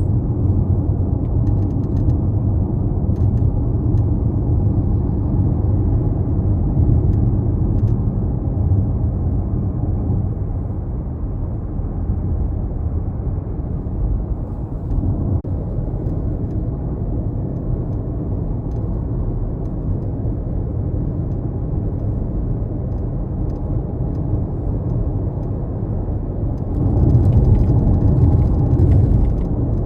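Mazda CX-5 being driven: a steady low rumble of engine and road noise, swelling louder for a couple of seconds near the end.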